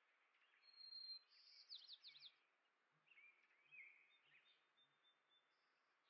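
Small songbirds chirping faintly, with a brief high whistle followed by a quick run of sweeping chirps in the first couple of seconds, then a few more scattered chirps.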